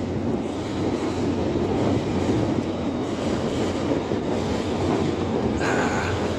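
A train running past with a steady rumble, and a short higher-pitched tone near the end.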